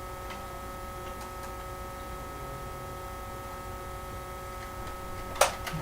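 Nerf blasters being loaded with darts: a few faint plastic clicks over a steady electrical hum, then two sharp clacks near the end.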